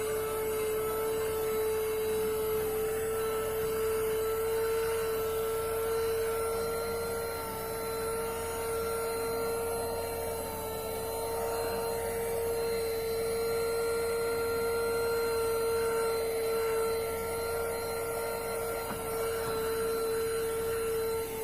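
Bergmann Supersonic handheld car vacuum cleaner running steadily, a constant motor whine with rushing air as it sucks dust off a car floor mat.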